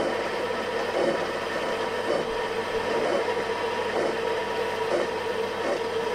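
Metal lathe turning a 1045 steel shaft while a tool cuts a groove into it: a steady spindle hum with a cutting tone that swells and fades every second or so.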